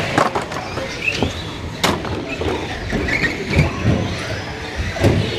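1/10-scale 4x4 short-course RC trucks racing on an indoor carpet track: motors whining as they speed up and slow down, with tyre scrub and clatter, and one sharp knock about two seconds in as a truck hits something.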